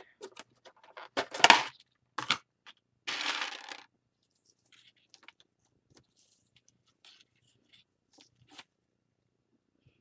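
Round plastic tub of wooden beads being opened and handled: a few sharp clicks and knocks over the first couple of seconds, the loudest about one and a half seconds in, then a short rattle about three seconds in. After that only faint light clicks of hands working cord and beads.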